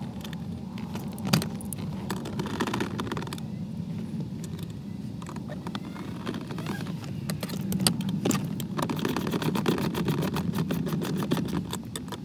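Short plastic clicks and rattles of interior trim and clips being handled inside a car's cabin, coming more often in the second half, over a steady low hum.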